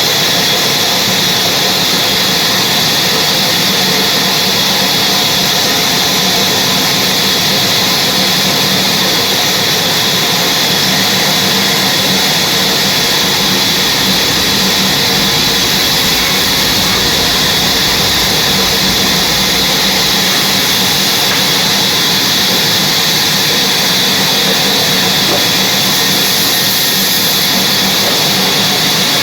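Sawmill machinery running loud and steady, a constant mechanical hiss and whine with no breaks or changes.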